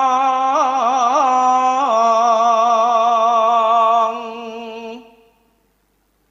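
A single voice singing a line of Javanese tembang: an ornamented, wavering phrase, then one long held note that fades out about five seconds in.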